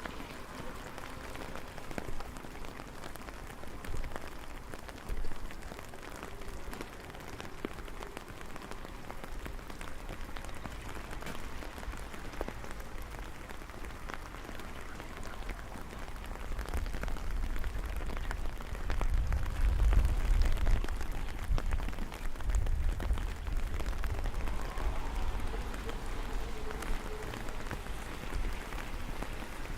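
Steady rain falling, with many separate drops ticking close by. A low rumble swells about two-thirds of the way through and then eases off.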